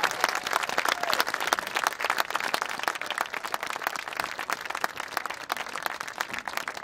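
Crowd in stadium bleachers applauding with dense hand clapping that thins out and gets quieter toward the end.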